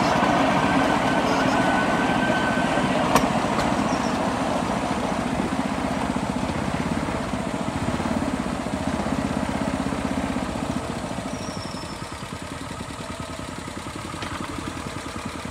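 Small engine of a motorized rail skate running, its sound fading gradually as the trolley slows down and settles to idle.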